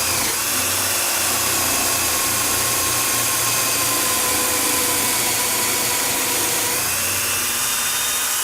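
Electric drill running steadily as it bores a dowel hole into a pine board through a doweling jig. Its pitch sags slightly, then rises again near the end.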